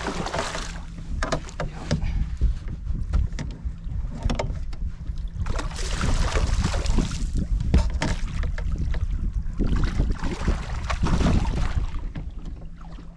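A hooked musky thrashing and splashing at the surface beside the boat, in several bursts a few seconds apart, over a steady low rumble of wind on the microphone.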